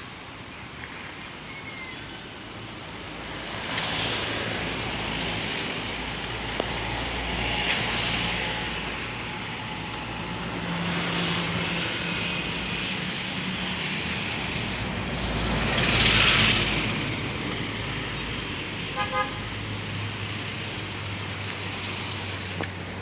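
Road traffic passing, with vehicles swelling up and fading several times and the loudest pass about two-thirds of the way through. A brief double toot sounds near the end.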